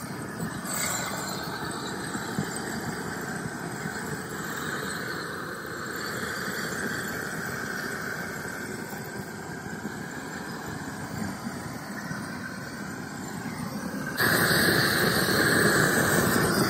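Handheld gas torch on a butane cartridge burning with a steady hiss as its flame chars wooden shelf boards. The sound gets abruptly louder about 14 seconds in.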